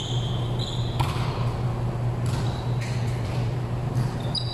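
Sneakers squeaking on the hardwood court floor at the start and again near the end, with a single sharp hit about a second in. A steady low hum runs underneath.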